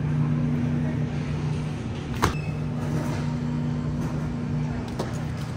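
Steady low hum of a supermarket refrigerated display case, with a sharp click about two seconds in and a lighter click near the end.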